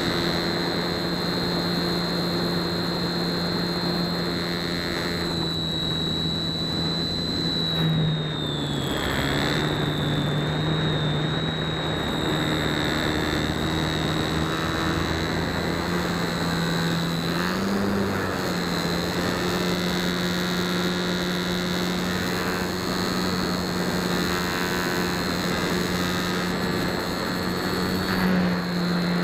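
Onboard sound of an RC foam flying wing's electric motor and propeller in flight: a steady drone with a high whine over a rush of air. The pitch dips briefly about a third of the way in and rises briefly near the middle and again near the end, as the throttle changes.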